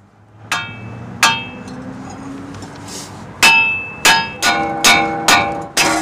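Hammer blows on a rusted front wheel hub assembly, driving it out of the steering knuckle of a 2013 Chevy Malibu without a slide hammer or hub puller. About eight sharp metallic clangs, each ringing briefly: two well apart, then six in quicker succession in the second half.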